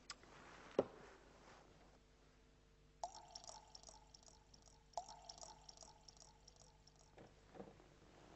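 Wine poured from a metal wine pot into a small cup: a pour that starts about three seconds in, starts afresh about two seconds later, and stops near the end. A single sharp knock about a second in is the loudest sound.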